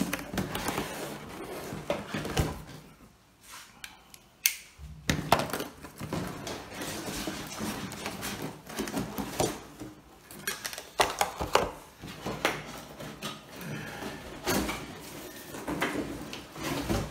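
Cardboard box being handled and unpacked: irregular rustling, scraping and knocking of cardboard and packing inserts, with a quieter lull about three to five seconds in.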